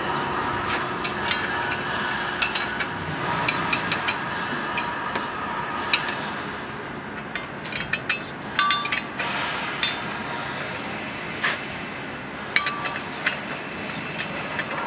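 Metal tools clinking and knocking on a cooling tower fan motor and its steel mounting frame: irregular sharp clicks, a few of them ringing briefly.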